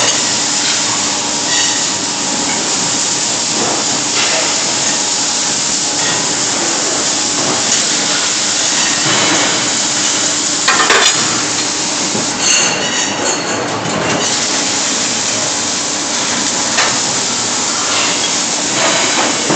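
Automatic welding machine's arc crackling and hissing steadily, with a steady low hum beneath and scattered sharp clicks.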